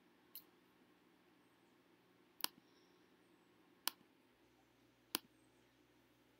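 Computer mouse clicking four times over near silence: one faint click near the start, then three sharper clicks spaced a little over a second apart.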